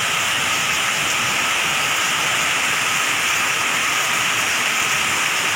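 Heavy rain pouring steadily, an even, dense hiss.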